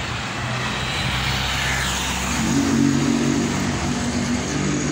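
A car driving past on the street, its engine hum and tyre noise swelling to their loudest a little under three seconds in, then easing off.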